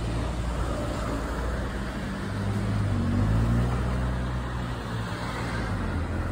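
A motor vehicle's engine running nearby, a low hum that grows louder to a peak about halfway through and then eases off, as when a vehicle passes.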